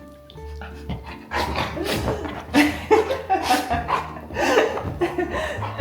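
A dog play-growling and snarling in a run of rough, irregular bursts that starts about a second and a half in, over background music: mock aggression while playing, not real threat.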